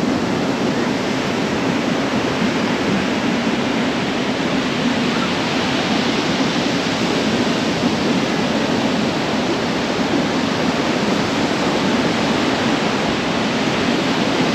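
Steady rushing noise of sea wind and surf on a beach: an even rush with no breaks or swells.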